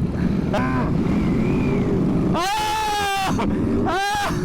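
Sportbike engines revved in the middle of a group street ride over steady engine and road rumble. There are short rising-and-falling rev blips about half a second in and near the end, and one engine is held at high revs for about a second in the middle.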